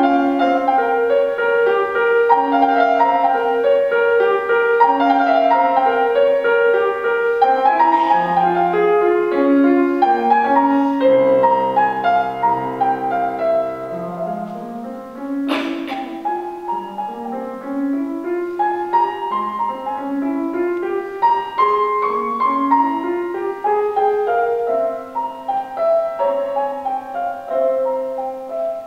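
Solo grand piano playing classical music: flowing passages, a low chord held for a couple of seconds about twelve seconds in, then a string of rising arpeggios, a little softer through the second half.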